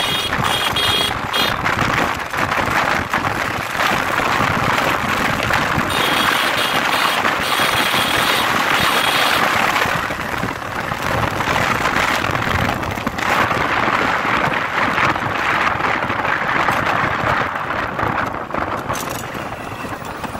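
Steady engine and road noise from inside a moving vehicle at highway speed. A high tone comes and goes twice, near the start and again from about six to nine seconds in.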